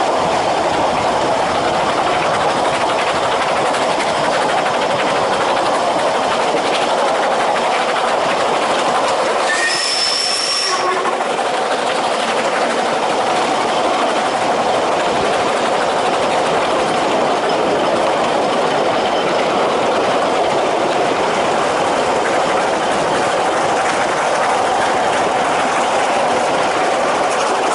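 Ffestiniog Railway narrow-gauge train running along the line, a steady rolling clatter of carriage wheels on the rails. About ten seconds in there is a brief high squeak.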